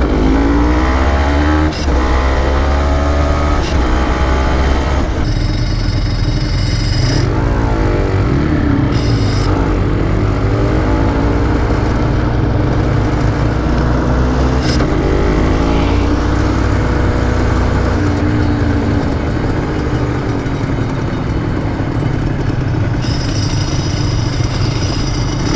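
Honda NSR250SE two-stroke V-twin engine under way, its pitch repeatedly rising under throttle and dropping between gear changes. A high, steady whine joins it briefly a few times.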